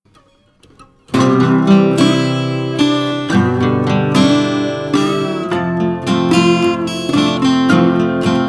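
Background music: strummed acoustic guitar, starting about a second in after a brief near silence.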